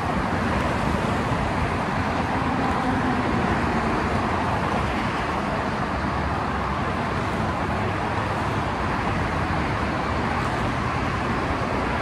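Steady freeway traffic noise: an even rush of passing cars and trucks with no single vehicle standing out.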